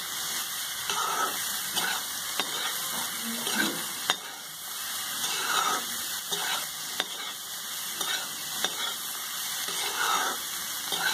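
Chopped Indian broad beans sizzling in hot oil in a stainless-steel kadhai as a spatula stirs and tosses them: a steady frying hiss with repeated scraping swishes, and a few sharp clicks of the spatula against the pan. The salted, spiced beans are being stir-fried.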